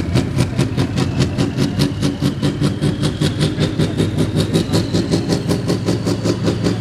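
Heavy diesel engine of a competition pulling truck running under load, pulsing evenly about six times a second, with a whine that climbs slowly in pitch.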